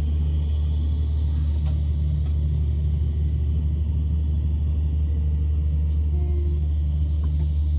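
Steady low rumble of a passenger train in motion, with a pulsing hum above it.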